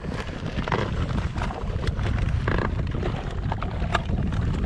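Steady wind noise on the microphone over water, with scattered small clicks and rustles and a short scratchy rasp about halfway through as hands rummage in the zipped pocket of a soft cooler bag.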